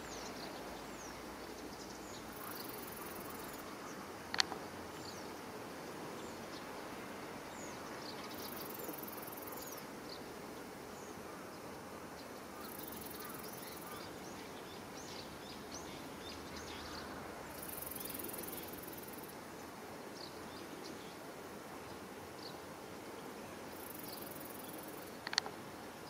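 Summer pondside ambience: insects buzzing in high-pitched bursts about a second long, repeating every few seconds, over a steady hiss, with scattered faint high chirps. A sharp click comes about four seconds in, and another near the end.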